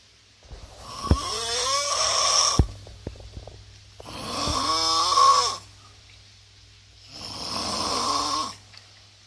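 A person snoring loudly: three long, rasping snores about three seconds apart, the first two with a wavering pitched tone that slides down partway through.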